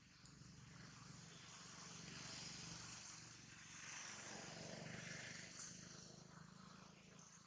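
Faint, distant engine noise over a low steady hum, swelling for a few seconds and then fading, as something passes at a distance.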